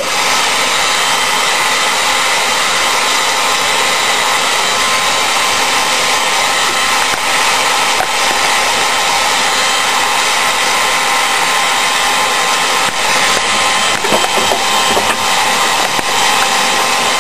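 Electric heat gun blowing steadily, its fan and hot-air rush running without a break as it heats a PVC trowel blade to soften it for bending.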